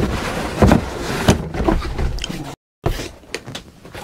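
A printed cardboard sleeve being slid off a cardboard box: a steady scraping rush with two knocks about a second in. It cuts out briefly past the middle, followed by lighter handling knocks on the box.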